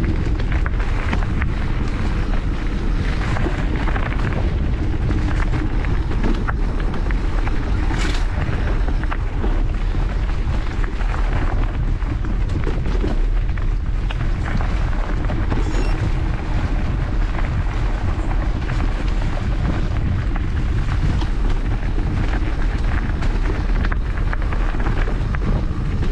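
Mountain bike rolling over a dry dirt singletrack: a steady low rumble of wind on the microphone and tyre noise, with frequent small clicks and rattles from the bike over bumps and a sharper knock about eight seconds in.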